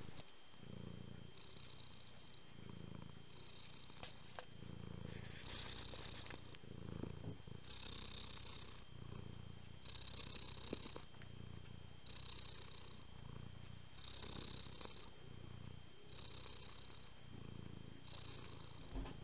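Domestic cat purring steadily, the purr swelling and easing in an even rhythm with its breaths, about one every two seconds.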